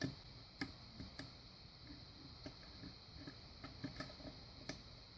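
Faint, irregular small clicks of a hook pick lifting and probing the pins of a pin-tumbler lock under light tension, as the picker works toward setting a pin. Several clicks come close together near the middle.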